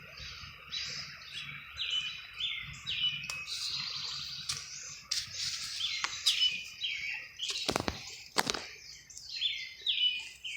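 Small birds chirping: short high notes repeated about twice a second. Two sharp clicks about three-quarters of the way through.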